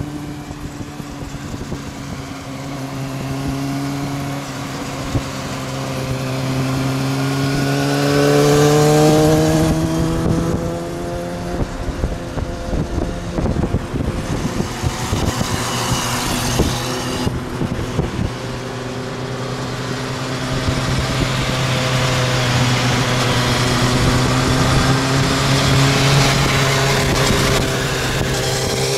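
Inline-four sportbike engines running on the street, over steady road and wind noise, with the engine pitch rising as a bike accelerates about a quarter of the way in and again near the end.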